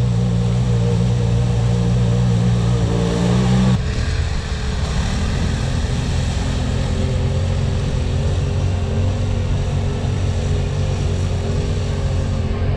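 Off-road vehicle engines running steadily; about four seconds in the sound switches abruptly from a smooth, even note to a rougher rumble.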